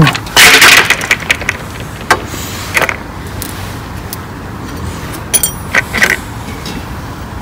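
Plastic radiator side cover and metal radiator guard of a motorcycle being handled and taken off: a loud rustling burst about half a second in, then scattered clicks and knocks of the parts against each other and the bike, over a steady background hum.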